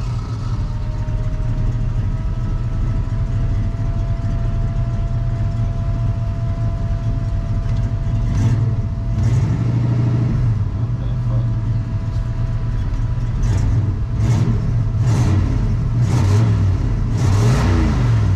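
Turbocharged Ford 302 V8 idling just after being started, with a steady whine over the idle. From about eight seconds in, it gets several short throttle blips, each with a rush of hiss.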